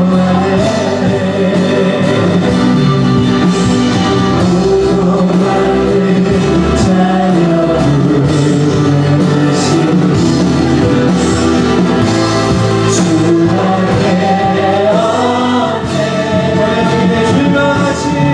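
Contemporary worship song with singing over guitar and band accompaniment, sustained and continuous.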